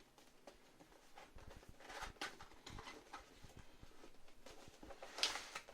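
Faint handling noise from a cardboard keyboard box being picked up and turned: soft rubs and light taps, a small cluster of taps about two seconds in, and one sharper knock about five seconds in.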